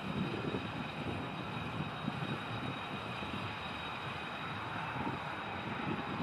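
Boeing 737-800's CFM56-7B jet engines running at low power: a steady high whine over a rough low rumble.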